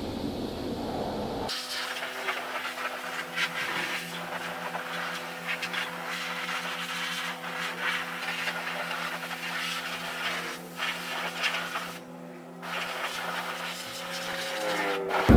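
High-pressure wash wand spraying water, a hissing spray that shifts as it is swept, over a steady pump hum that sets in about a second and a half in. The spray stops briefly near the end.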